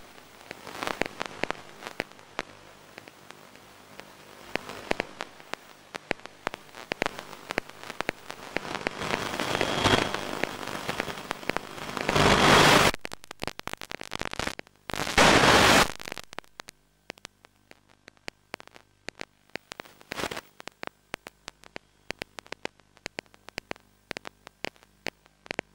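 Crackling radio static and clicks on an FPV video downlink's audio channel, with two loud bursts of hiss about twelve and fifteen seconds in, as the radio link breaks up; after that the clicks come sparser over a quieter hiss.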